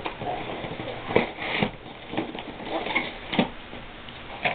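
Packaging being handled and opened by hand: irregular rustles, scrapes and sharp clicks, the sharpest about a second in, about three and a half seconds in and near the end.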